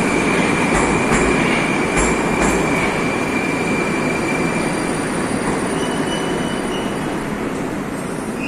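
Moscow metro train running through the station: a steady wheel and rail rumble with a high, steady wheel squeal. There are four clunks in the first two and a half seconds, and a fainter, higher squeal near the end.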